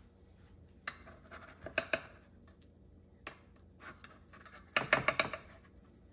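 Metal spoon scraping and knocking against the sides of a metal muffin tin, prying baked egg muffins loose from their cups. Scattered short clinks and scrapes, the loudest cluster about five seconds in.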